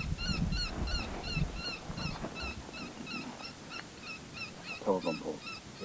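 A predator call playing a steady run of short, high, squeaky notes, about four to five a second, the kind of distress sound used to lure coyotes in. Wind rumbles on the microphone for the first couple of seconds.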